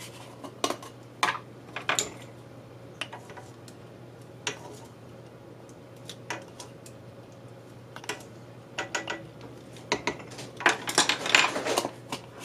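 Wooden measuring spoon clicking and tapping against a glass spice jar and a stainless steel stockpot as paprika is scooped out and added: scattered light clicks, coming thicker near the end, over a faint steady hum.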